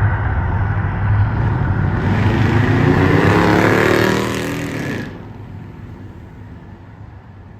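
Loud rumbling roar of the Mirage volcano show's eruption effects, swelling into a hissing whoosh with a falling pitch, then cutting off sharply about five seconds in and dying away.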